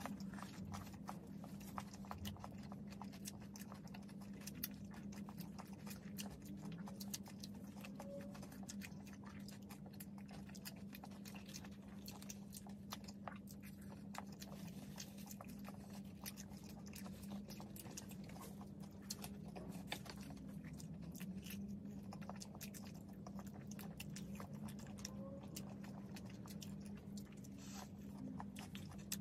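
Two people chewing and biting into cheeseburgers and French fries close to the microphone: a continuous run of small mouth clicks, over a steady low hum.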